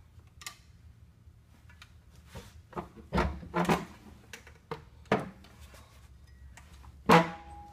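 Several clunks and knocks as a MerCruiser Alpha One Gen 2 sterndrive outdrive is shifted and worked by hand on its transom mount. The loudest knock comes near the end and leaves a ringing tone.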